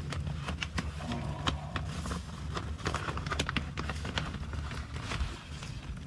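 A black plastic nursery bag crinkling and rustling as it is pulled away from a rosemary's root ball: a run of irregular crackles and clicks over a low rumble.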